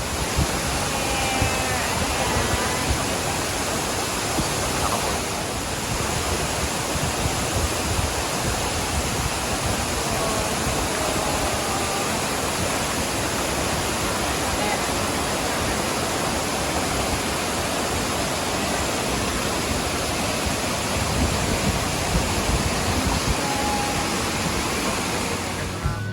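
Waterfall pouring, a steady loud rush of water, with faint voices in it now and then.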